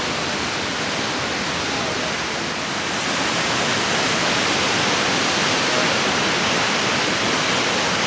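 Mountain creek waterfall rushing: a steady, even roar of falling water that gets slightly louder about three seconds in.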